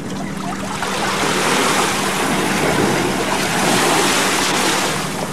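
Seaside noise of waves and wind rushing on a camcorder microphone, swelling about a second in and easing near the end.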